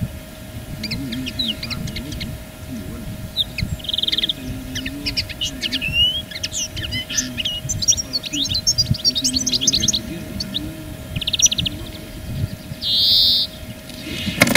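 Small birds chirping and calling in many quick, short notes, with a few buzzy trills. Near the end the clap net is pulled and closes with a thump.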